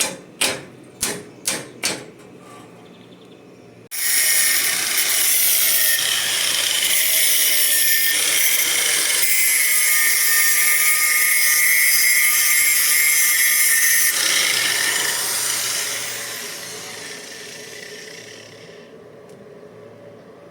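Five quick sharp knocks, then a power tool, likely an angle grinder, starts abruptly and grinds metal with a loud, high-pitched noise for about ten seconds before fading away as it winds down.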